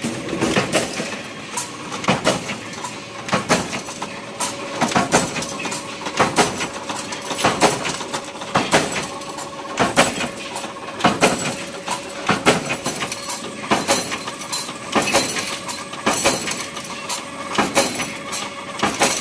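Steel rod cutting machine chopping bar stock to length, a sharp metallic clank about every second and a quarter as each piece is cut and drops, over a steady machine hum.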